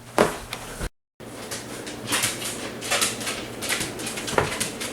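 Aloha Breeze ceiling fan running on high speed, its air gusting over the microphone in rhythmic whooshes a little more than once a second. A sharp knock comes just before a brief dropout near the start.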